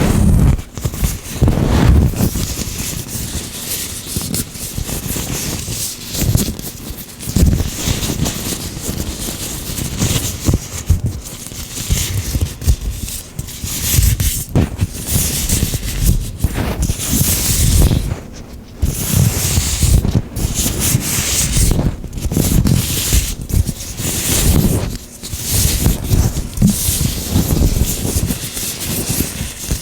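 Gloved hands rubbing and working oil: an irregular rubbing noise that swells and fades unevenly every second or two.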